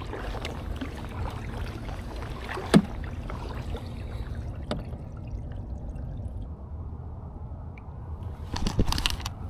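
Water sloshing and trickling around a kayak hull under a steady low wind rumble on the microphone, with a few sharp knocks: one about three seconds in, one near five seconds, and several near the end.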